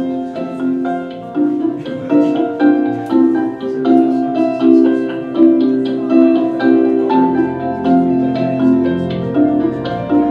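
Instrumental music: a busy pattern of struck, pitched notes over held lower tones.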